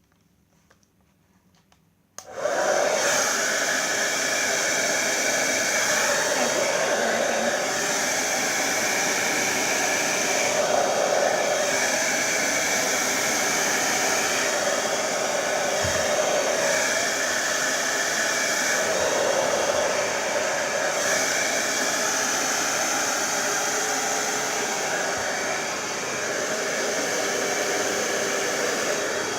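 Babyliss Turbo Power 2200 hairdryer switched on about two seconds in, then running steadily at a loud, even blow, its tone shifting slightly now and then as it is moved over the hair.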